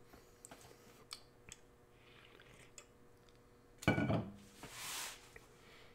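Pokémon booster pack being opened and its cards handled: light clicks and rustles, then a sudden loud burst just under four seconds in, followed by a short hiss.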